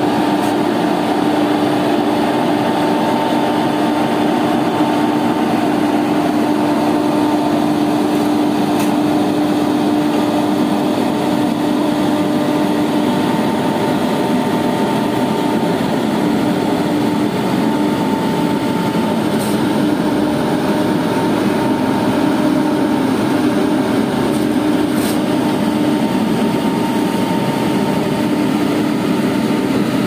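Apollo asphalt paver's diesel engine running steadily while laying asphalt: a loud, constant drone with a steady hum.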